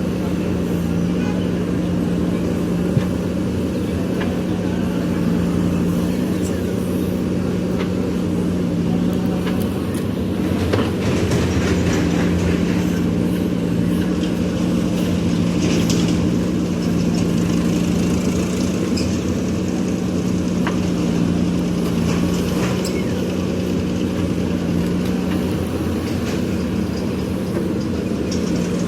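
JCB backhoe loader's diesel engine running steadily while digging, with scattered light knocks and clinks from the working machine, most of them about halfway through.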